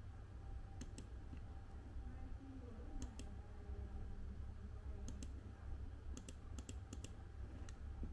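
Computer pointing-device button clicking while working through a printer settings dialog: about a dozen short, sharp clicks, mostly in quick pairs, bunched together toward the end, over a low steady hum.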